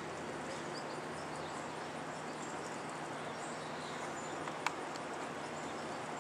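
Outdoor ambience: a steady hiss with faint, scattered bird chirps, and a single sharp click about four and a half seconds in.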